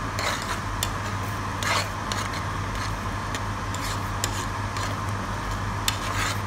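Metal spoon stirring glutinous rice in coconut milk in a nonstick pot, scraping and clicking irregularly against the pot. Underneath is a steady low hum and hiss.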